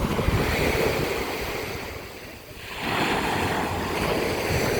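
Sea waves washing in, one surge fading away and a second rising about three seconds in, with wind rumbling on the microphone.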